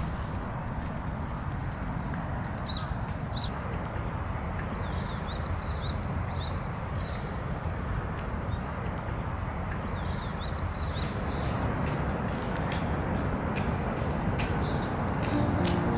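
Small birds chirping in several short bursts of quick, high falling notes over a steady low outdoor background noise, with faint ticks near the end.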